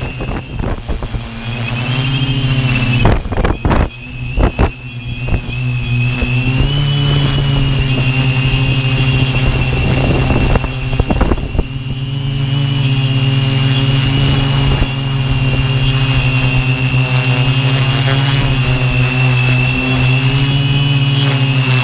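Tarot 650 quadcopter's brushless motors and propellers humming steadily in flight, with a thin high whine above the drone, as heard from the onboard GoPro. Gusts of wind buffet the microphone about three seconds in and again about ten to twelve seconds in.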